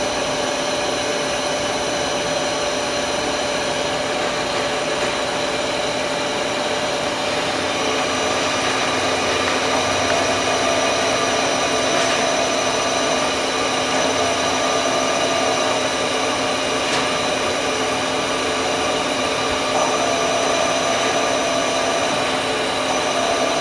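Daewoo Puma CNC turning center running its C axis: a steady electric-drive whine made of several held tones. A slightly higher tone comes in about eight seconds in, fades, and returns near the end.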